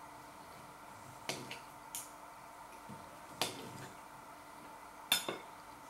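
Knife and fork clinking and scraping against a plate while cutting food: a handful of short sharp clinks spaced a second or so apart, the loudest about five seconds in, over a faint steady hum.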